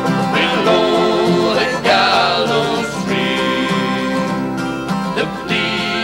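Irish folk band performing a ballad: several men's voices singing over acoustic instrument accompaniment.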